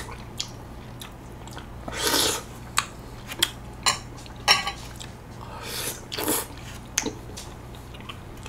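Close-miked eating of half-frozen golden kiwi: scattered wet bites, slurps and chewing. Between them come a few sharp clicks as pieces are handled in the bowl. The loudest bursts come about two seconds and six seconds in.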